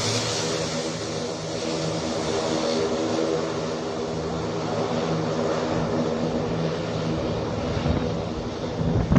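Airbus C-295 twin-turboprop transport aircraft, its engines and propellers droning steadily with an even hum.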